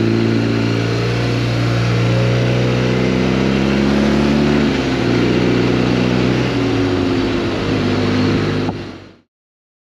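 Motorcycle engine running while riding, with wind and road noise; the engine note drops a little twice, then the sound fades out quickly near the end.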